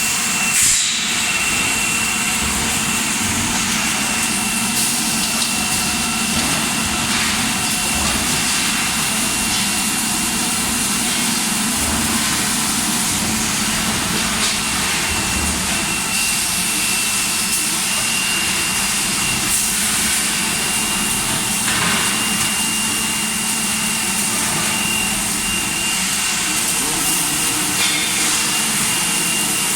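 Steady factory machinery noise, an even hiss with a thin constant high whine and a low hum, with no sudden events.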